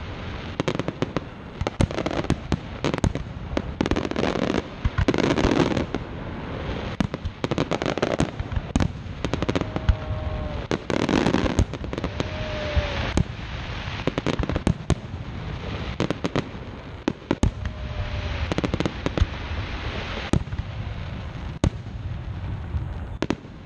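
Fireworks grand finale: a dense barrage of aerial shell bursts, sharp bangs following one another several times a second without a break.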